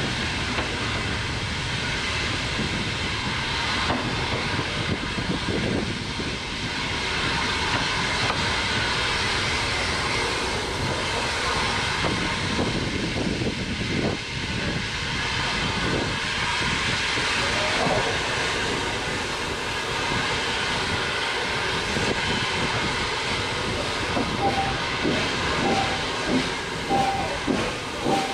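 Hunslet 0-6-0 saddle-tank steam locomotive running along the line: a steady hiss of steam over the rumble of wheels on the track. Near the end comes a run of regular short knocks, a little under two a second.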